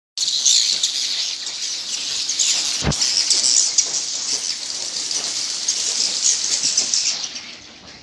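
A roost of swiftlets chattering in a dense, continuous high twitter, fading out near the end. A single sharp click cuts through about three seconds in.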